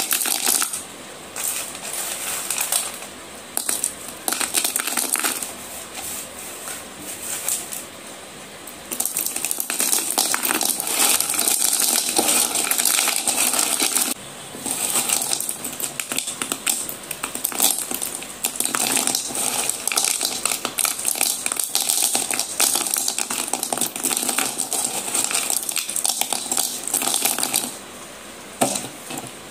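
A heap of white slate pencil sticks stirred and tossed by hand in a pan, the hard sticks clattering and clinking against each other and the pan. The clatter comes in patches with short lulls at first, runs dense and steady from about nine seconds in, and dies down near the end.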